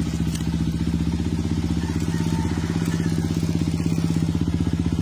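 Honda XR200's single-cylinder four-stroke engine idling steadily with an even firing pulse.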